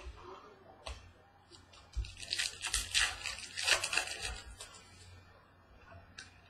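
Trading-card pack wrapper being torn open and crinkled: a burst of crackling lasting about two seconds, starting about two seconds in, with a few light taps of handling before it.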